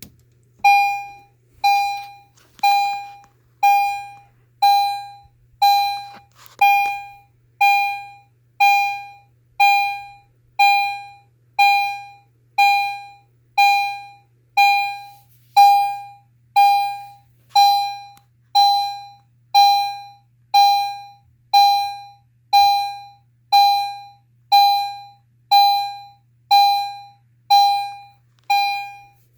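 EST Genesis electronic fire alarm chime sounding a repeated single tone about once a second, each note starting sharply and fading away like a struck bell.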